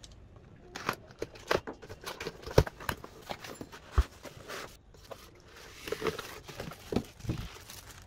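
A cardboard box being unsealed and opened: a tape seal torn off, with sharp knocks and scrapes of cardboard, the two loudest about a second and a half apart. In the second half a plastic bag crinkles as the packed speaker is handled.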